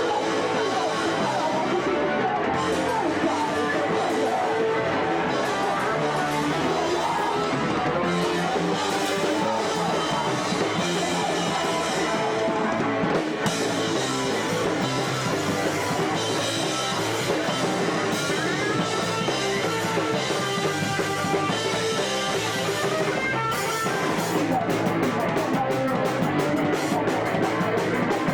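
Fast punk rock from a band with distorted electric guitars and drums; about 23 seconds in, the drums hit harder with crashing cymbals.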